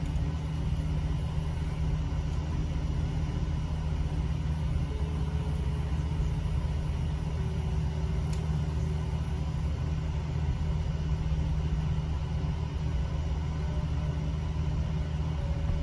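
Steady low rumble, even in level throughout.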